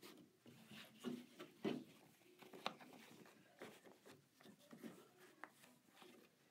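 Faint, irregular rustling of fabric and stabilizer, with small taps and clicks from the embroidery hoop, as hands smooth the fabric and press it down into the hoop.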